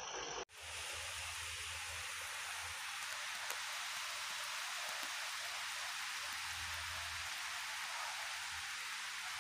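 Steady rain falling, an even hiss, with a faint low hum underneath. The sound drops out briefly about half a second in, then the rain carries on unchanged.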